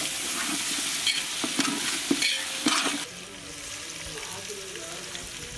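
Onions, carrots and green chillies sizzling as they fry in vanaspati (Dalda) in a large aluminium pot, with a metal spatula scraping and stirring against the pot bottom in repeated strokes. About three seconds in the stirring stops and a quieter, steady sizzle goes on.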